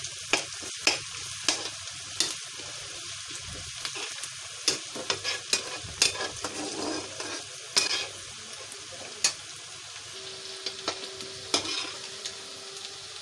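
Chopped onion and green chillies sizzling in hot oil in a metal kadai, being sautéed until lightly browned, while a metal ladle stirs them and clicks and scrapes against the pan now and then.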